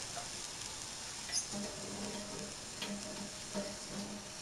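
Marinated beef slices sizzling in a hot pot as a little water goes in, with a steady hiss. A spoon stirring the meat knocks against the pot a few times.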